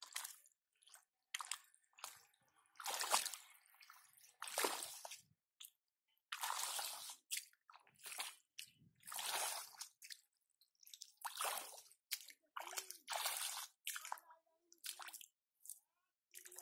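Bare feet treading in soft mud under shallow water: a string of wet squelches, roughly one a second, with short gaps between them.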